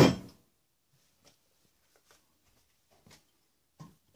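A sharp knock as the black ABS plastic pipe-fitting assembly is set down on the wooden workbench, followed by a few faint light taps as the parts are handled.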